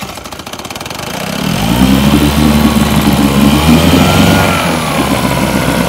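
Vintage two-stroke outboard motor with its cowling off, catching after a pull-start and picking up to a steady run about a second and a half in, its speed swelling slightly and settling again around four seconds in. It runs because the carburetor float has been bent level, so the needle valve now shuts off the fuel.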